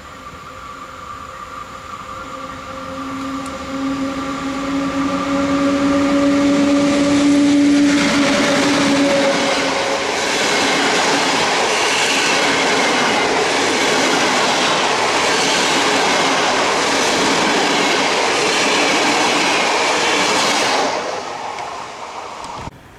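An electric passenger train approaching and passing close by at speed. A steady whine grows for the first eight seconds or so, then the loud rolling rumble and rhythmic clatter of the wheels over the rail joints carries on until the train has gone, fading just before the sound cuts off near the end.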